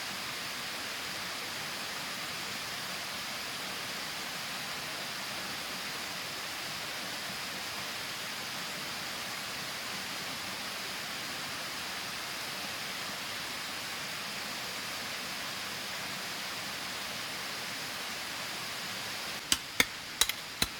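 Steady rushing water, an even hiss with no change in level. Near the end come a few sharp knocks.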